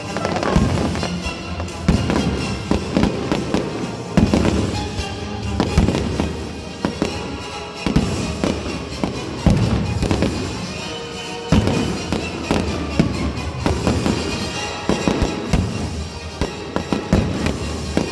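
Aerial fireworks display: shells bursting one after another, a sharp bang every second or two, with music playing underneath.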